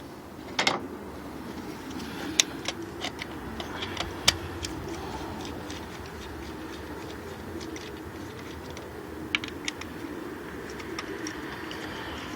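A 3/8-inch ratchet with extension and 10 mm socket loosening the ignition coil bolts on a Toyota 1ZZ-FE engine: irregular sharp metal clicks and rattles of the ratchet and tools, the loudest a short clatter about half a second in.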